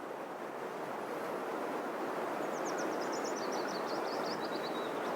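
Outdoor ambience: a steady, even rush of natural background noise, with a small songbird singing a fast trill of high notes that steps down in pitch about halfway in, and starting again near the end.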